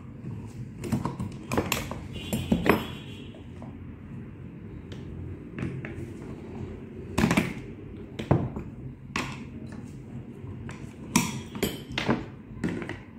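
A screwdriver and a thin metal tool clicking, tapping and scraping against the plastic body of a Tefal steam iron while working at screws under the handle. The repairer says these screws seize with rust from the iron's steam. Irregular sharp clicks and knocks sound over a low steady hum.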